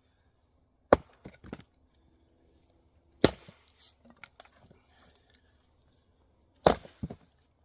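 Dandenong splitting axe striking Douglas fir firewood three times, a sharp crack every two and a half to three seconds, each followed by a few lighter knocks.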